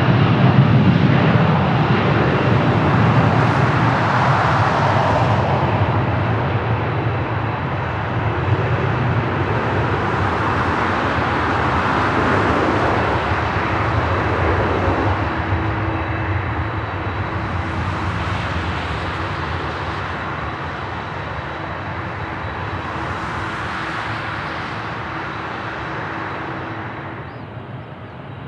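Mitsubishi CRJ-900 regional jet's twin turbofans at takeoff power: loud, steady jet noise that fades slowly as the aircraft moves away, then cuts off abruptly near the end.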